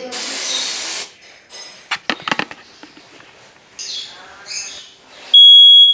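A short hiss of canned test smoke sprayed from an aerosol can, then a few clicks. Near the end a First Alert ionization smoke and carbon-monoxide combo alarm goes off with a loud, high-pitched tone, responding to the test smoke: its smoke sensor works.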